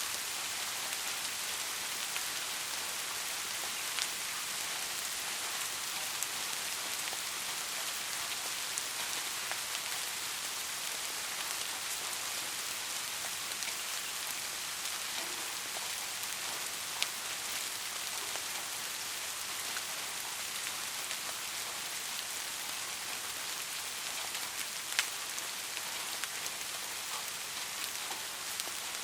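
Soft, steady rain falling, an even hiss with scattered individual drop ticks, a few louder single drops standing out.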